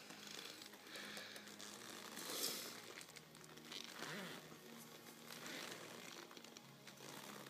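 Faint creaking and rustling of a leather jacket and leather gloves as the wearer moves his arms, in short swishes, the loudest about two and a half seconds in.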